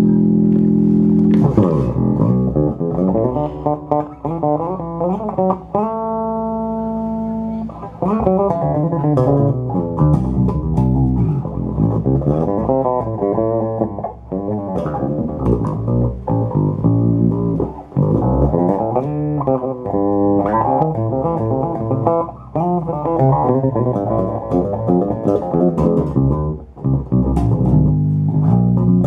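Electric bass guitar played through a Phil Jones Bass Briefcase combo amplifier with two small speakers: a run of plucked notes and bass lines, with one long held note about six seconds in.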